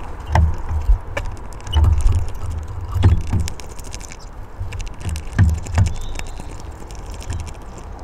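Irregular knocks and taps from birds feeding at a wooden bird table, about one every second or so, each a dull thump with a short sharp click on top, over a low rumble.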